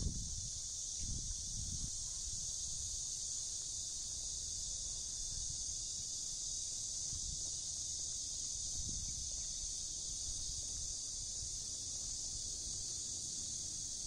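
A steady, high-pitched chorus of insects buzzing without a break, with a few faint low thumps in the first two seconds.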